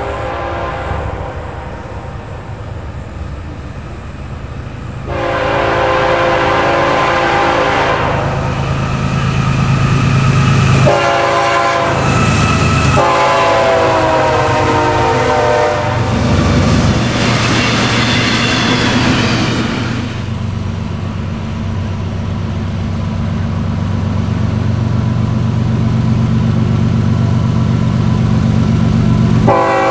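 Freight train led by Florida East Coast GE ES44C4 diesel locomotives sounding its air horn in several blasts as it approaches, then passing close by with a loud rush of engine and wheel noise. After that a second GE-led train's diesels drone steadily as it approaches, with another horn blast near the end.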